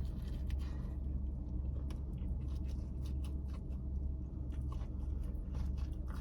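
A person chewing a mouthful of spicy fried chicken sandwich up close, with soft scattered mouth clicks throughout, over a steady low hum.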